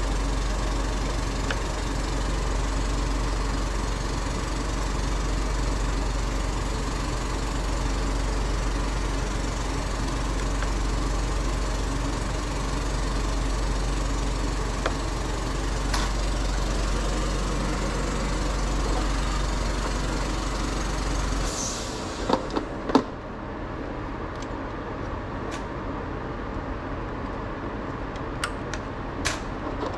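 A motor-driven machine running steadily with a low hum, which cuts off suddenly about two-thirds of the way through. A few light clicks and taps follow.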